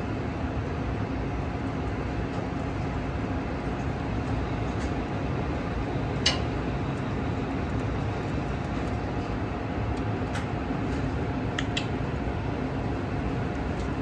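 Nieco chain-conveyor broiler running: a steady mechanical hum and rush from the machine and its moving conveyor chains, with a few faint clicks. The gas has just been turned back on and the burners have not yet caught.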